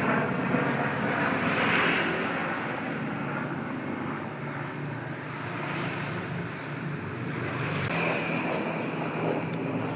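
Police helicopter flying low overhead: a steady rush of rotor and engine noise with a low hum, swelling a little about two seconds in and again near the end.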